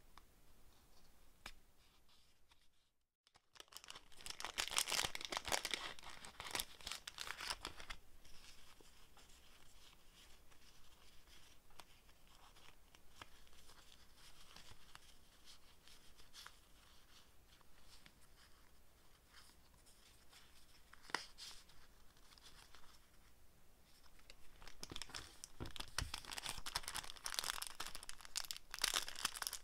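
Paper flake stickers being shuffled and handled close up, with the rustle and crinkle of their clear plastic packet. The crinkling is loudest a few seconds in and again near the end, softer in between.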